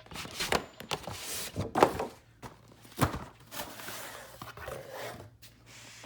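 Packaging being handled and opened: rustling with a series of knocks and thunks, the loudest about two seconds in and again about three seconds in.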